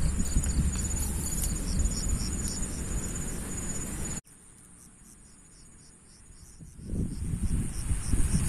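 Insects chirping in the grass: a high, pulsed call repeating about three times a second. Under it a low rumble on the microphone cuts off suddenly about four seconds in and returns near the end.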